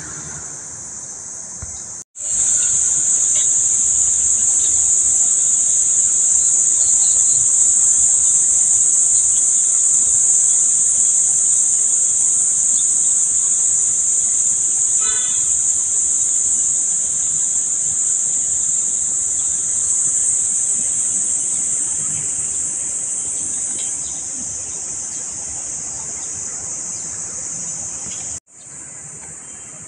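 Loud, steady, high-pitched insect drone from the trees. It cuts in abruptly about two seconds in, eases slightly near the end, then cuts off abruptly.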